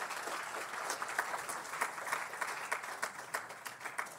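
Audience clapping after a poetry reading, thinning out near the end.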